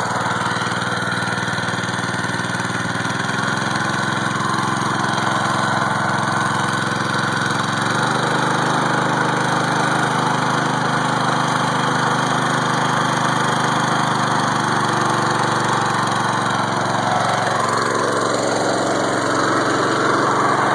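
Harbor Freight Predator small single-cylinder engine running steadily under load while belt-driving an alternator. Its speed steps up about a third of the way through as it is given more throttle to carry the load.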